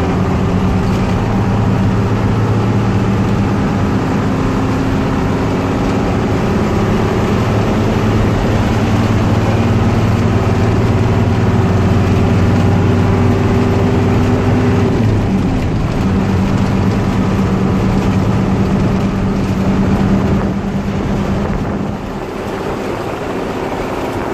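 Hino 1J bus's diesel engine running hard under way, its pitch creeping up steadily. About fifteen seconds in the pitch drops abruptly and then holds lower, and the engine gets quieter near the end.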